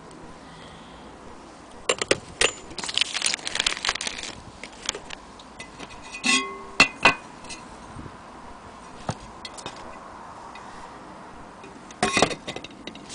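Brass parts of a 400-day anniversary clock and its glass dome being handled: scattered clinks and rattles of metal and glass, with a short ringing clink about six and a half seconds in and a few sharp knocks near the end.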